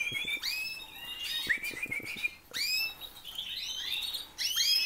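Canaries calling in an aviary: many short rising chirps, several birds overlapping, one after another.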